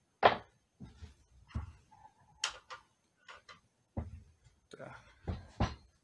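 Metal parts of a Ruger PC carbine clicking and knocking as they are handled and fitted together during reassembly: about ten sharp clicks and light knocks at uneven intervals, the loudest right at the start.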